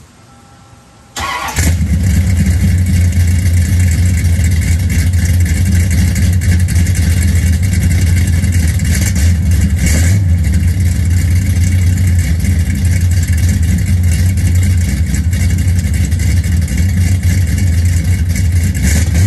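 The 1987 Oldsmobile Cutlass's big-block V8 engine starting about a second in, then running steadily and loudly with a deep exhaust note.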